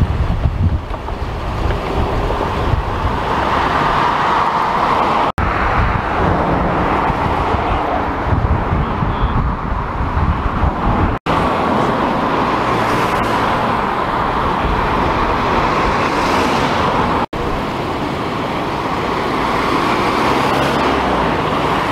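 Steady roadway traffic noise from cars passing on a busy street, with wind buffeting the microphone through about the first half. The sound drops out abruptly three times.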